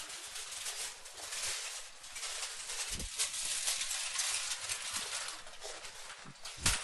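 Aluminium foil arcing inside a running microwave oven: a dense, continuous crackle of fine sparks. A short low thump comes about three seconds in and a louder one near the end.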